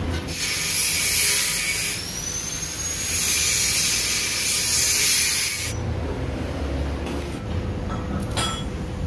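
Argon shielding gas hissing from the regulator and torch line in two stretches, with a faint whistle that rises in pitch, as the gas flow is opened and set before welding.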